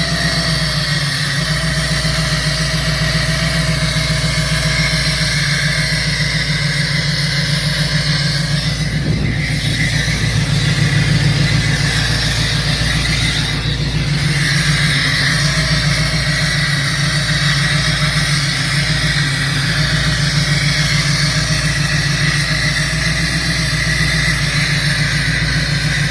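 A 2003 Mustang SVT Cobra's supercharged 4.6-litre V8 idling roughly: a steady low pulsing with a higher steady whine over it. It is missing on a dead cylinder, and a vacuum leak is suspected.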